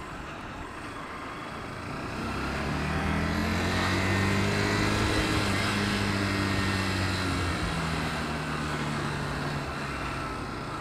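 Motorcycle engine pulling away about two seconds in, its pitch rising and then easing back to a steady run, heard from the rider's helmet over wind hiss.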